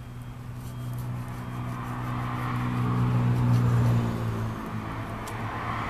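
A motor vehicle's engine passing by: a steady low hum with a hiss of tyre noise that swells to a peak just past the middle and then fades. A few faint clicks sound over it.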